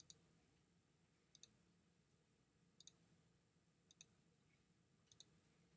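Computer mouse button clicking five times, each a quick press-and-release pair, about a second or so apart, with near silence between them.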